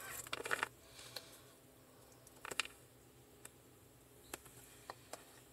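Faint handling noise from a smartphone held up and turned in the hands: a soft rustle at the start, then mostly quiet room tone with a few scattered, brief clicks.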